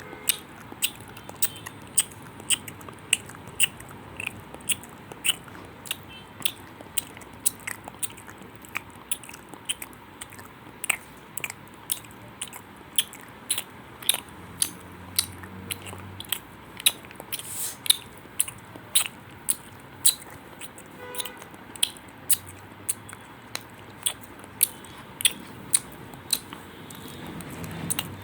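Short, sharp clicks repeating about twice a second, a little unevenly.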